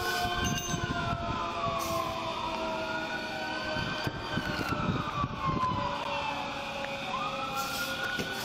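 Emergency vehicle sirens wailing: a slow siren tone that rises and falls every three to four seconds, starting a new rise about seven seconds in, over a second, steadier siren tone.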